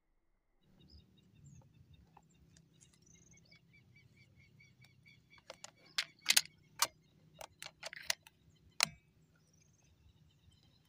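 Small birds chirping over a steady low outdoor background. In the middle comes a run of about eight sharp clicks and knocks, from handling the air rifle and its scope.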